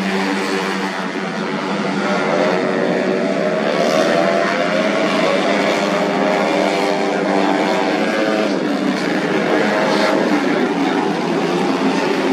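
Several tuned 130 cc automatic scooter racing engines running hard at once, their overlapping pitches rising and falling as they rev.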